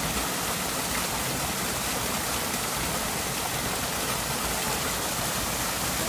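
Small waterfall pouring into a koi pond, a steady rush and splash of falling water.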